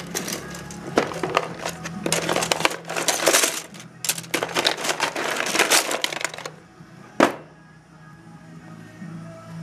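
Server RAM modules clattering and rattling against each other in a clear plastic storage tub as it is handled, in bursts, followed by a single sharp click about seven seconds in.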